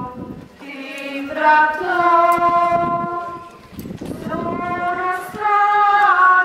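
A group of women's and children's voices singing a slow hymn in unison, with long held notes in two phrases and a short break between them.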